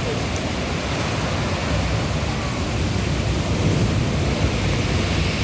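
Steady rushing noise of sea surf and wind, heaviest at the low end and with no breaks.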